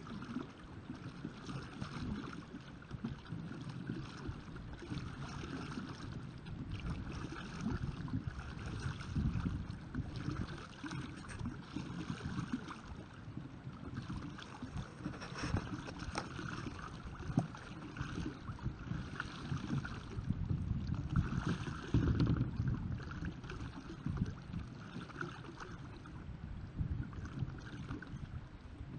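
Water splashing and churning as a homemade pedal kayak's paddle-wheel propellers turn through the sea, with wind rumbling on the microphone.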